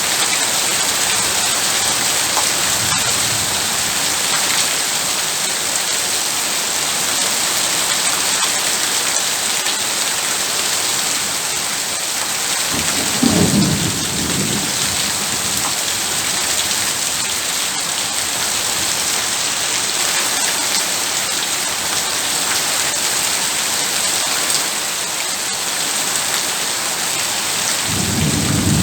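Heavy rain falling steadily in an even, dense hiss. A short low rumble of thunder comes about halfway through, and another begins at the very end.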